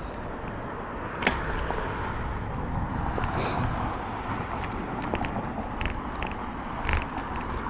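Steady outdoor road noise, a rushing haze like traffic, with a few sharp clicks and rattles scattered through it.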